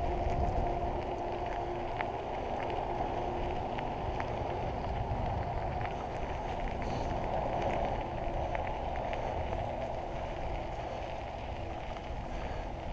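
Mountain bike rolling along a dirt and gravel trail: a steady rush of tyre noise and wind on the bike-mounted camera's microphone, with scattered small ticks and rattles from the bike. It eases off a little near the end as the bike reaches pavement.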